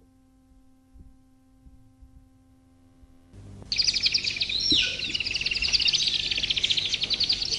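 A faint steady hum with a few soft ticks. Then, about three seconds in, birdsong starts over a soft hiss: rapid, high chirping trills with one falling whistle.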